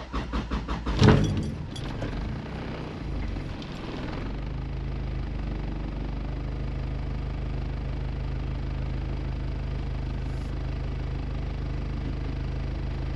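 Honda G23BK-build four-cylinder engine being cranked by the starter, catching with a brief flare of revs about a second in, then settling into a steady idle.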